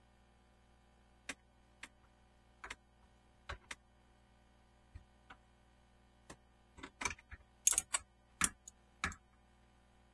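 Irregular clicks and light knocks of hard objects being handled, sparse at first, then a louder cluster close together about seven to nine seconds in.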